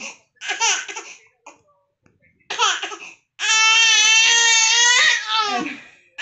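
Baby crying angrily: a few short outbursts, then one long, high-pitched wail from just past the middle to near the end.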